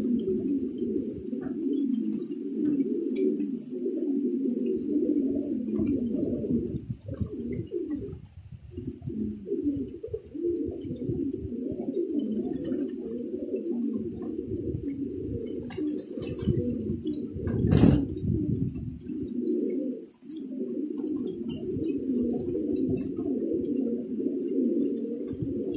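A flock of domestic fancy pigeons cooing together, many overlapping low calls with no break. About two-thirds of the way through there is one short, louder rush of noise.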